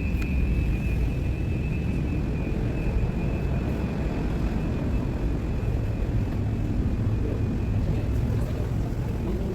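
Steady low rumble of airliner and airport ground noise, with a faint high whine that fades out about halfway through.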